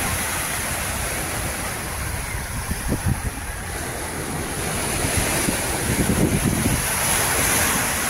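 Small sea waves breaking and washing up on a sandy shore in a steady wash of surf, with wind rumbling on the microphone.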